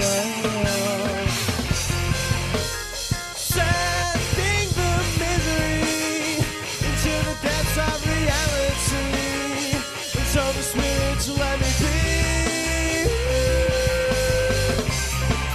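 Rock band playing a song, with electric guitar and drums.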